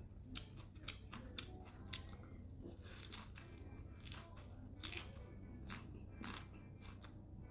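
Close-up eating sounds: biting and chewing a lettuce-and-herb wrap of crispy bánh chao (Khmer rice-flour crepe), giving a series of sharp, irregularly spaced crunches.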